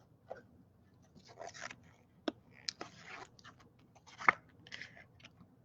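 Baseball trading cards being handled and slid against one another, giving soft rustles and scrapes with a few sharp clicks, the loudest a little past four seconds in.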